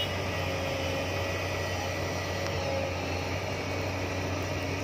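JCB tracked excavator's diesel engine running steadily under load while it digs and loads soil, a constant low drone with a noisy hiss over it.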